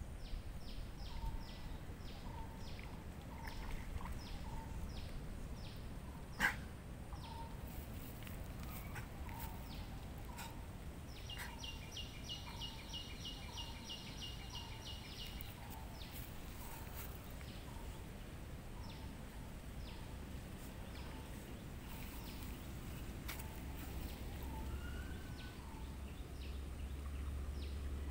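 Birds calling: a short call repeated roughly once a second, and a fast trill lasting about four seconds near the middle, over a low rumble. A single sharp click comes about six and a half seconds in.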